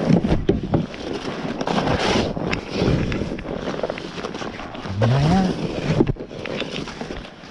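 Snow shovel with a plastic blade digging and scraping packed, granular snow from under a car stuck in snow: repeated crunching scoops and scrapes with a few sharp knocks. A brief rising voice sound comes about five seconds in.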